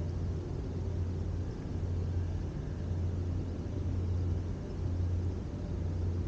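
Steady low mechanical rumble, an unbroken low hum with an even hiss of background noise over it and no distinct events.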